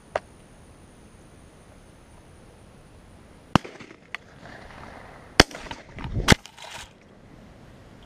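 Shotgun shots at doves: three loud, sharp reports, the second about two seconds after the first and the third less than a second later. A fainter sharp crack comes at the very start.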